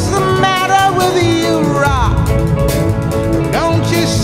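Trailer music: a song with a voice singing over the band.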